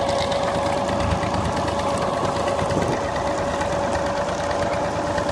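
Sugarcane crushing machine driven off a Massey Ferguson 135 tractor's drive shaft, running steadily with a rapid mechanical clatter, the tractor engine running underneath and a steady whine over it.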